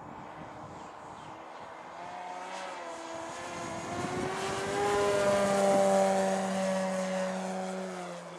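Radio-controlled Yak 54 model aerobatic plane's motor and propeller making a steady pitched drone as it flies past, growing louder to its peak about five seconds in and then fading, its pitch bending slightly.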